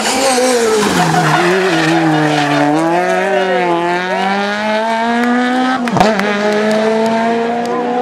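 Peugeot 208 rally car engines at full stage pace. The note drops as a car slows, then climbs as it accelerates away. After an abrupt cut about six seconds in, another engine pulls steadily up through the revs.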